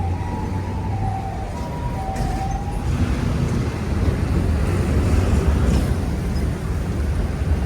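Electric commuter train running, heard from inside the car: a steady low rumble of wheels on rail, with a faint motor whine during the first few seconds.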